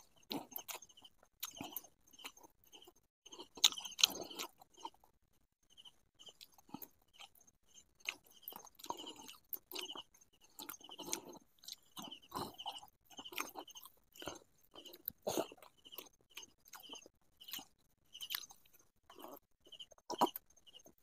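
A person eating close to the microphone, chewing and crunching in irregular bites.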